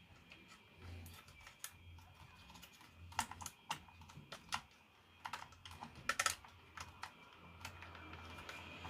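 Scattered small clicks and taps of parts being handled and fitted into the tuner, with a quick cluster of clicks about six seconds in, over a faint steady hum.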